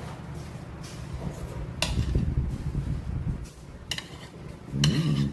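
Eating utensils knocking against dishes: a few sharp clinks, about two seconds in and again near the end, over a low handling rumble.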